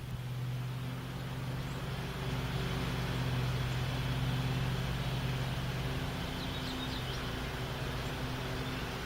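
Gusty wind rushing, over a steady low hum that runs throughout, with a few faint high chirps about two-thirds of the way through.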